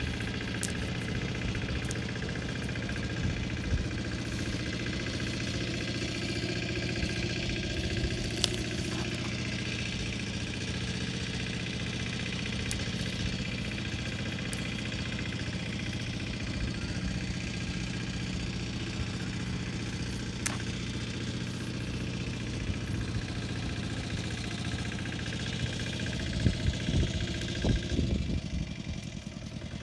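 An engine running steadily at an even pitch, with a few louder knocks near the end.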